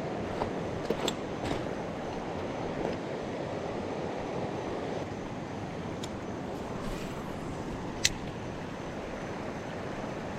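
Steady rush of river water running over shoals, with a few sharp clicks, the loudest near the end.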